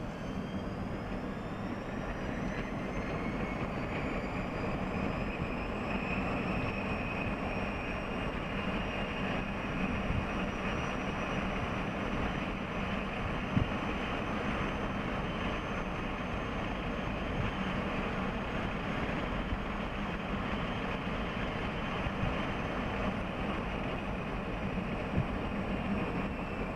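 Solectria E10 electric pickup on the move: a thin high whine from its electric drive rises in pitch over the first several seconds as it speeds up, holds steady, then drops slightly near the end, over steady road and tyre noise.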